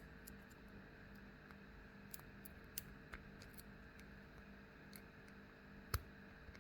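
Faint, scattered small metallic clicks of a pick and tensioner working the five pins of a stainless steel tubular padlock, with one sharper click about six seconds in, over a faint steady hum. The lock is being picked back to its locked position.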